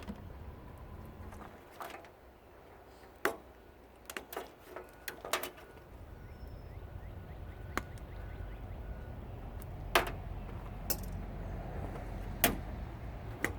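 Scattered sharp clicks and knocks of hand tools and metal parts being worked while a tankless water heater's wiring is stripped out. A low steady hum comes up about six seconds in.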